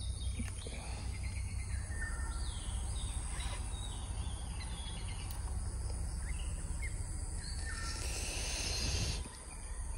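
Rural outdoor ambience: birds chirping in short scattered calls over a steady high insect drone and a constant low rumble. A louder hiss swells briefly about eight seconds in.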